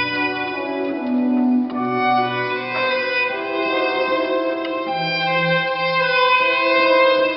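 Live classical chamber music: held notes and chords over a bass line that changes note every second or so, with a higher melody above.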